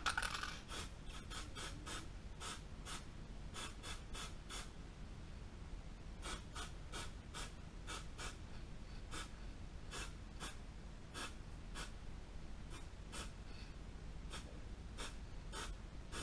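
Dozens of short hissing puffs of dry zinc stearate mold release sprayed from a can onto a rifle's recoil lug, coming in quick irregular runs of two to four a second.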